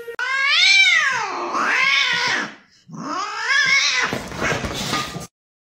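Cat yowling: two long, drawn-out meows, each rising and then falling in pitch. The second trails into a noisy rustle that cuts off suddenly.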